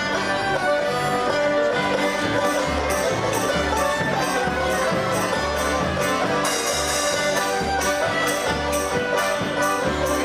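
Live Ukrainian folk band playing a polka: fiddles and piano accordions lead over a bouncing alternating bass, with a steady off-beat of about two to three accents a second.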